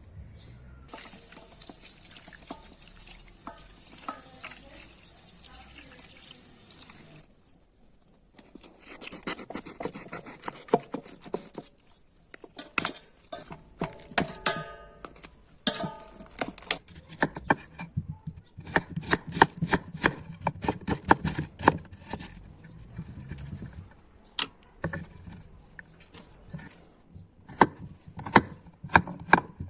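Kitchen food-preparation sounds: a steady hiss for the first seven seconds, then a long run of clicks, knocks and clinks from utensils and dishes being handled, with a few brief ringing tones.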